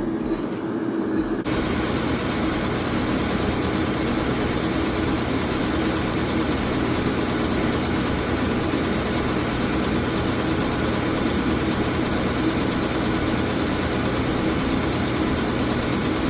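A forge running with a steady, even rushing noise while the axe head heats for hardening. The noise starts abruptly about a second and a half in.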